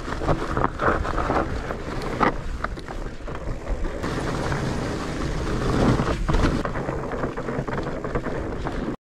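Mountain bike rolling fast over a rough trail: tyres crunching on dirt and leaves, with knocks and rattles from the bike and wind rumbling on the camera microphone. It cuts off suddenly near the end.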